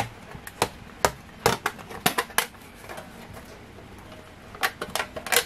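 Sharp, irregular cracks and clicks as strips are snapped off a scored panel of LED circuit boards, with a quick cluster of snaps near the end.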